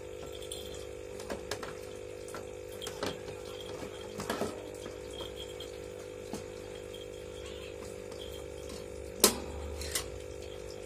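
Plastic and wire parts of a hamster cage being handled and fitted together: scattered clicks and knocks, the loudest a sharp one about nine seconds in, over a steady hum.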